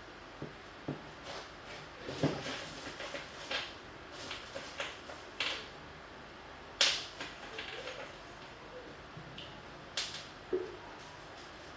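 Irregular clicks and knocks of objects being handled and set down. The sharpest knock comes about seven seconds in and another about ten seconds in.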